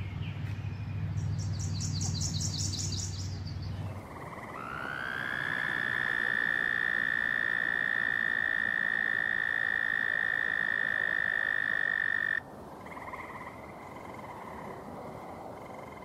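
A bullfrog's low call fills the first four seconds. Then an American toad gives one long, steady, high musical trill of about eight seconds, rising slightly in pitch at its start and cutting off suddenly. Fainter trills from other toads follow.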